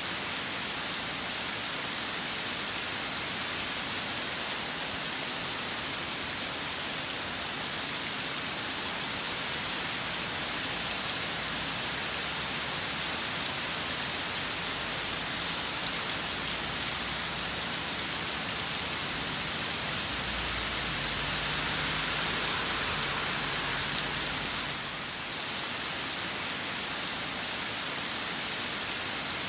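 Steady rain falling and pattering on surfaces, an even hiss. A low rumble swells in about twenty seconds in and fades about five seconds later.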